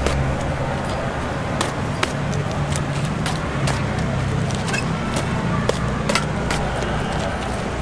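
Knife cutting and scraping through a jackfruit's rind and flesh: a run of short, sharp clicks and ticks at an irregular pace, over a steady low hum.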